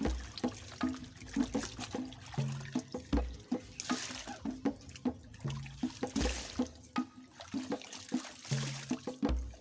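Background music: a looping tune of short repeated low notes with a deep bass hit about every three seconds and recurring hissing swells.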